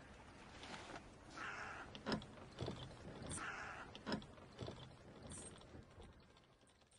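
Water slapping against the wooden hull of a sailing felucca: three soft rushes about two seconds apart, each followed by a few light knocks, fading out near the end.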